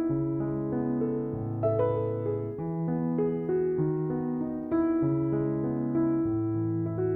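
Soft background piano music: slow, gentle notes over held low bass notes.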